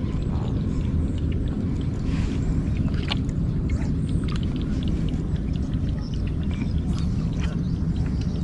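Steady low rumble, with faint light clicks and rustles from handling fishing tackle.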